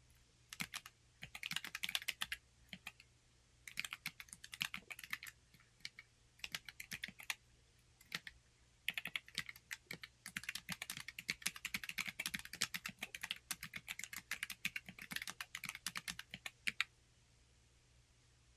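Typing on a Corne split mechanical keyboard: rapid key clicks in bursts with short pauses, stopping about a second and a half before the end.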